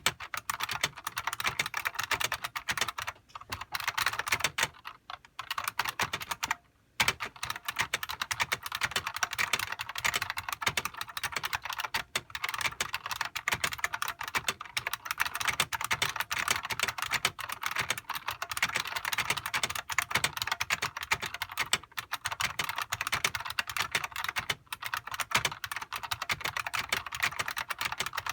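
Fast, continuous typing on a Unicomp Classic buckling spring keyboard: a dense stream of key clicks, with a few brief pauses in the first seven seconds.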